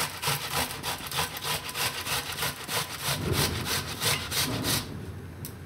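A tomato being grated by hand on a stainless-steel box grater: quick, rhythmic wet scraping strokes, about five a second, that stop about five seconds in.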